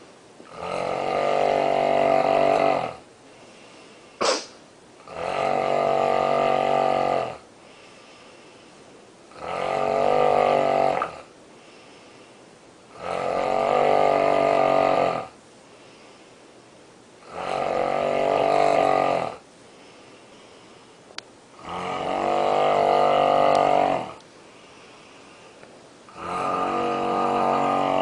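A woman snoring loudly in sleep: seven long, rasping, pitched snores, each lasting about two seconds and coming about every four seconds, with quieter breathing gaps between. There is one short sharp sound about four seconds in.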